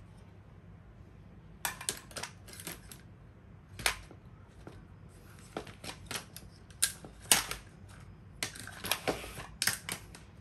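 Small tools and objects being handled: irregular clicks, knocks and short clatters in several clusters.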